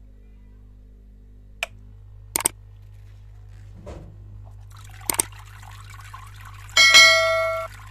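Water trickling in a small plastic-bottle DIY fountain over a steady low hum, broken by a few sharp clicks. Near the end there is a loud, brief ringing tone.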